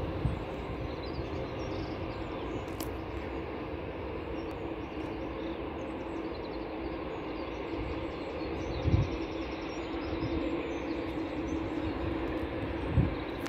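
Rolls-Royce Trent XWB-97 turbofans of an Airbus A350-1000 on final approach, a steady distant jet drone with a held hum, growing a little louder as the airliner nears. Two short low thumps come about nine and thirteen seconds in.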